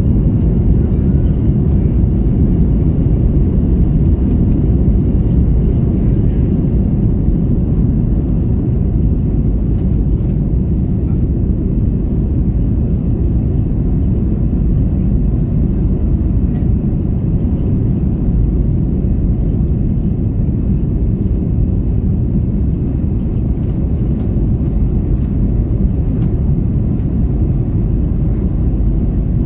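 Steady low roar of an Airbus A330-300's jet engines and rushing airflow heard inside the cabin during the climb after takeoff, easing slightly about six seconds in.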